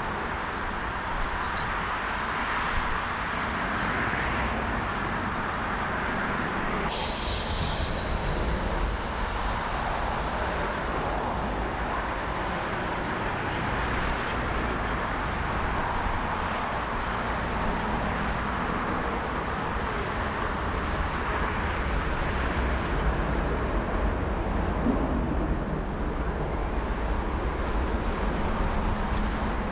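Steady rushing noise of strong gusty wind buffeting the microphone, mixed with the distant rumble of jet airliners. The sound changes abruptly about seven seconds in.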